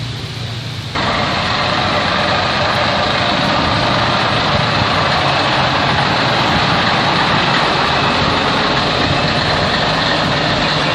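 A diesel semi-truck tractor with tall chrome stacks, its engine running steadily as it drives slowly past. The sound starts abruptly about a second in.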